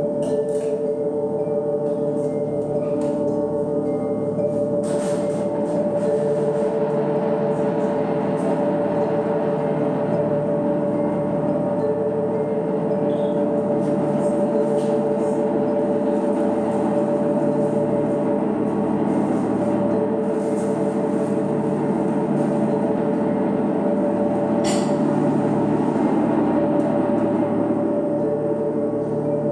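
Live ambient drone music from bowed cello, keyboard and effects pedals: two steady held tones over a dense droning texture, with a few faint clicks.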